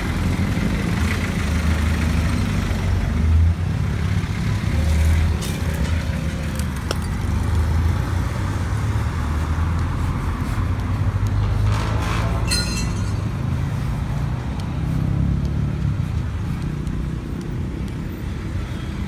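Low, pulsing rumble of a motor vehicle engine running close by, with a short hiss about twelve seconds in.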